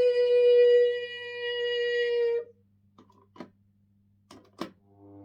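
A long, steady held vocal note that cuts off sharply about two and a half seconds in, followed by a few light clicks. Right at the end the Miele CX1 Blizzard vacuum cleaner's motor begins to start up.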